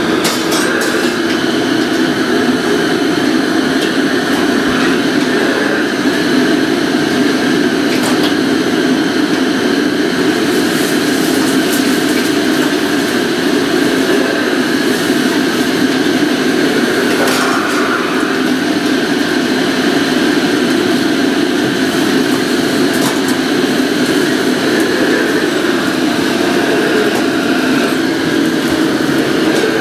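Steady roar of a commercial Chinese kitchen's wok range: high-output gas wok burners and the extraction hood running. A few short metallic clinks, ladles on woks, cut through it now and then.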